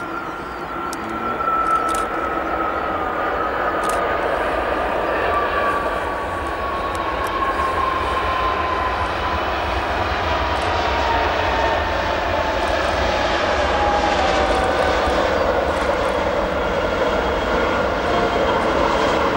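Airbus A320-214's CFM56 jet engines during the landing roll-out: a steady jet roar with a fan whine that falls slowly in pitch throughout. The noise swells about two seconds in.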